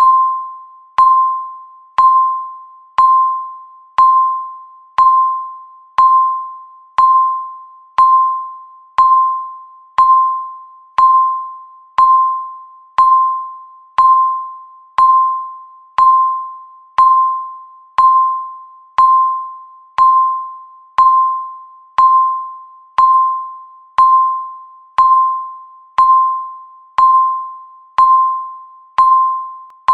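Countdown timer's electronic beep sounding once every second: a single clear tone that starts sharply and fades before the next one.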